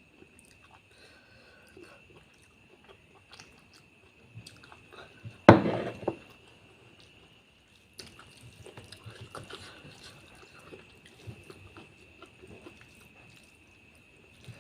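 A person chewing and eating a meal of curry and rice, with soft irregular mouth smacks and wet chewing noises that get busier in the second half. A single loud knock about five and a half seconds in, and a steady high whine underneath throughout.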